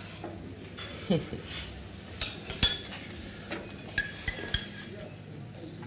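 Teaspoons stirring coffee and clinking against the cups: a handful of sharp, ringing metallic clinks in the middle and second half.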